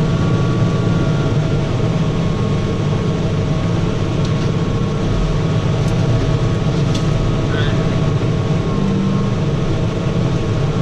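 Tractor engine running steadily under load as it pulls through a field, a constant deep drone with faint steady whines above it.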